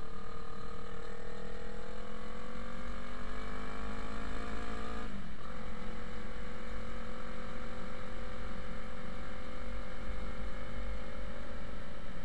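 Yamaha R3 motorcycle's parallel-twin engine rising steadily in revs for about five seconds, dropping sharply at a gear change, then holding a steady pitch while cruising, over a heavy rush of wind on the microphone. The engine is still running cold and has not yet warmed up.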